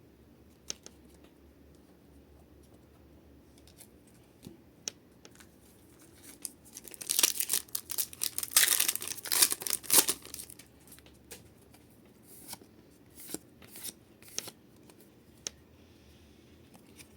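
A Pokémon card booster pack's foil wrapper being torn open and crinkled: a loud, rough tearing stretch of about three seconds in the middle, with scattered light clicks and taps of handling before and after.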